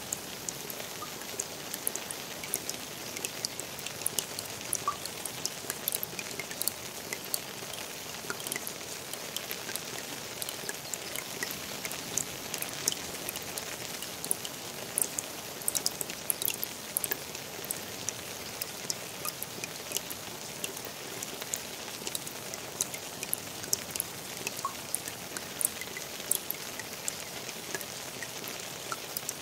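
Steady rain falling on a garden pond: an even hiss of rain with many irregular sharp splashes of single drops hitting the water.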